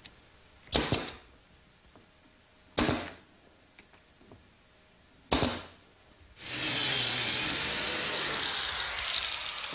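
Pneumatic brad nailer firing three times, about two seconds apart, driving brads into a mahogany face-frame stile. About six seconds in, an electric biscuit joiner starts and runs steadily, with a faint falling whine, as it cuts a biscuit slot.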